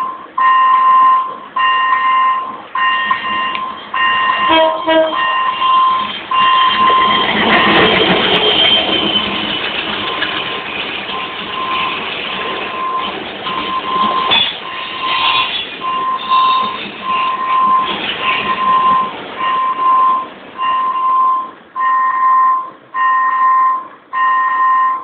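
Level-crossing warning bell ringing an even electronic ding, about one and a half strikes a second, while a freight train of tank wagons rolls across. The wheel-and-rail rumble is loudest from about seven to thirteen seconds in, then dies away and leaves the bell ringing alone.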